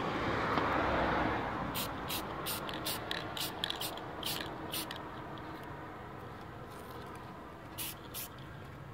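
Aerosol spray paint can hissing in a short burst, followed by a run of sharp clicks and rattles, with two more clicks near the end.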